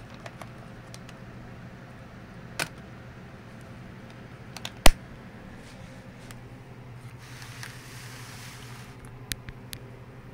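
Scattered clicks and knocks of die-cast metal toy cars being picked up and set down by hand, the loudest a sharp click about five seconds in, with a brief rustle near the end, over a steady low hum.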